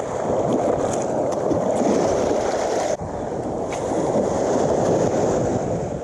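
Shallow surf washing and small waves breaking, with wind rushing on the microphone. A brief break in the sound about three seconds in.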